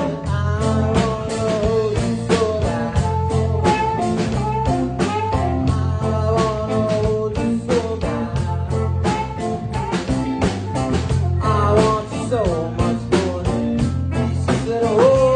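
Live band playing an instrumental passage: two saxophones carry a gliding melody over electric guitar, a low bass line and a steady drum-kit beat.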